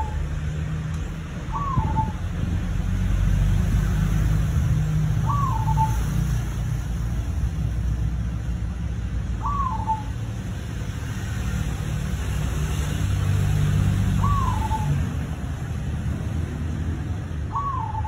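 Zebra dove (perkutut) cooing: five short coos, one about every four seconds, over a steady low rumble.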